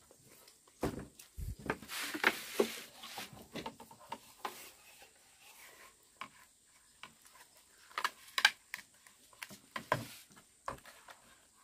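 A rack of raw pork ribs being skewered onto a green bamboo pole over a wooden tray: irregular knocks, taps and rubbing of bamboo, wood and meat, with the loudest knocks about two seconds in and again near eight seconds.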